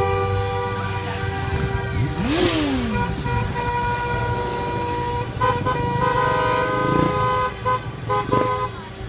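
Several car horns honking at once in a line of traffic: some held for seconds, others beeped in short bursts, their different pitches overlapping. About two seconds in, a motorcycle engine passes close by, its pitch swooping.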